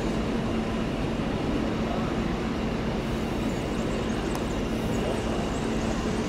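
English Electric eight-cylinder diesel engine of a CP 1400-class diesel-electric locomotive running steadily, a continuous low hum without revving.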